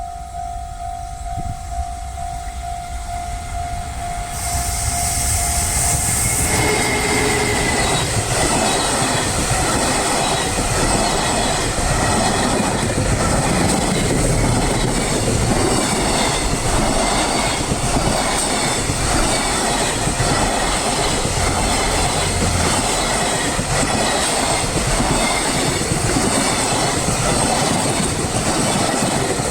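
A level-crossing warning sounding steadily, then a long train passing through the crossing at speed from about five seconds in, its wheels clacking rhythmically over the rail joints.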